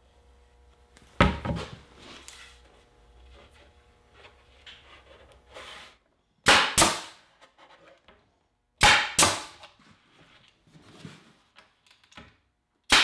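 Pneumatic brad nailer firing into plywood: about six sharp shots, a single one about a second in, then two quick pairs and a last shot at the end.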